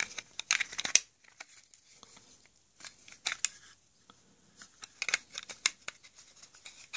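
Plastic case of a solar charge controller being handled as its cover is fitted over the circuit board: scattered plastic clicks, taps and scrapes, the sharpest about a second in.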